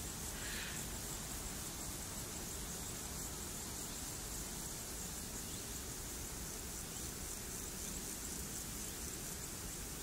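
Steady rushing noise of the Stäubifall waterfall's falling water, with a constant high hiss on top.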